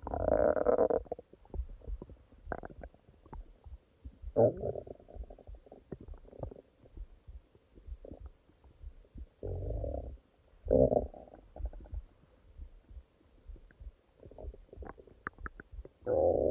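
Human stomach growling in a run of separate rumbles, each about a second long or less. The strongest comes at the start, others come about four, ten and eleven seconds in and at the end, and faint crackling runs between them.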